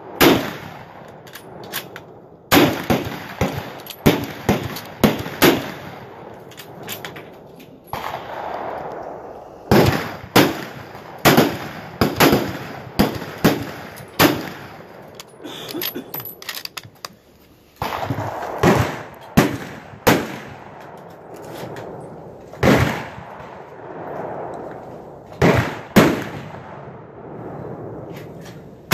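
Rifle fire on a firing line: many sharp shots from several rifles at irregular intervals, some in quick succession and some overlapping, each trailing off in a short echo.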